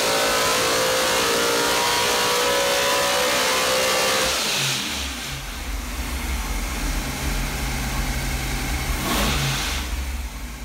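Carbureted SB2 small-block V8 race engine on a dyno, running hard at high revs with its pitch climbing slowly through a dyno pull. About four seconds in it is let off and drops to a low rumbling idle, with a brief surge of revs about nine seconds in.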